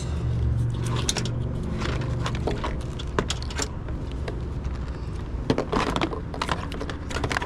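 Irregular metallic clicks, clinks and rattles of a jumper lead and alligator clips being handled and attached, over a steady low rumble.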